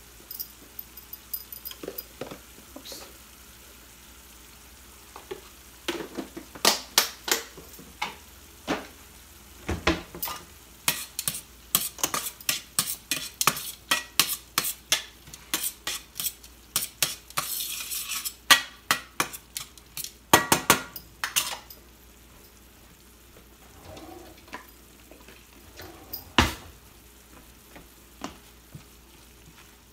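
A cooking utensil stirring and scraping in a stainless steel frying pan, clinking against the metal over a faint sizzle of frying food. The clinks come thick and fast from about six seconds in until just past twenty seconds, then give way to a few isolated knocks, one sharp one near the end.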